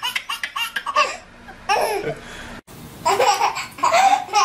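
A baby belly-laughing in quick, evenly spaced bursts, then, after a sudden break about two and a half seconds in, more bursts of laughter.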